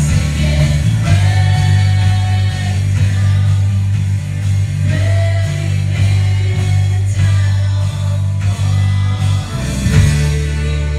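Live worship band playing a rock-style song through a church PA, with electric guitar, heavy steady bass, drum hits and singing.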